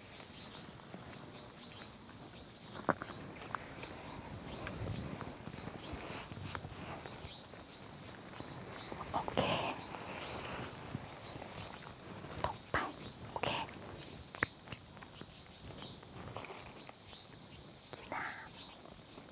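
Insects chirping steadily at a high pitch, with scattered rustles and light clicks from someone shifting about in leafy undergrowth.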